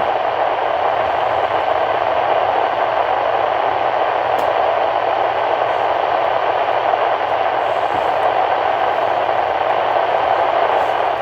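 Steady, even hiss of radio static from a NOAA Weather Radio receiver.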